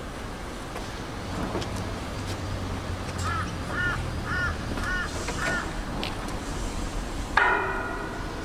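High heels striking a metal landing and steps, with sharp clicks here and there and, near the end, one loud clang that rings on briefly. In the middle a bird calls five times in quick succession.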